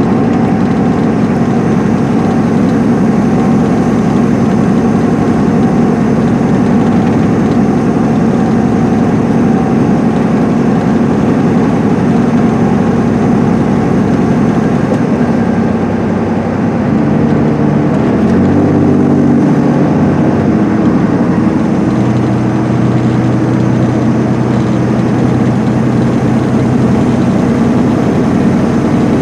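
Interior of a 2010 MCI D4500CL highway coach at cruising speed: the Cummins ISM diesel drones steadily under loud road and tyre noise. About two-thirds of the way through, the engine note shifts in pitch a few times before settling again.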